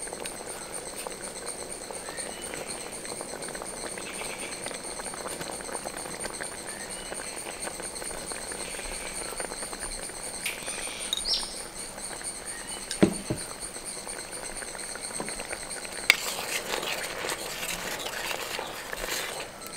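Sambar simmering in a bronze uruli with faint bubbling, over a steady high whine, and a single knock about thirteen seconds in. From about sixteen seconds a wooden spoon stirs the pot, scraping and sloshing.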